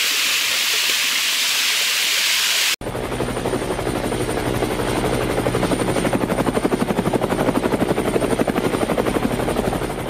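A small waterfall rushes steadily. After about three seconds it cuts off abruptly and a rapid, even pulsing sound over a steady low hum takes over.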